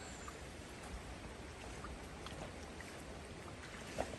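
Faint steady rush of flowing water from a stream and waterfall, with a few light splashes or ticks.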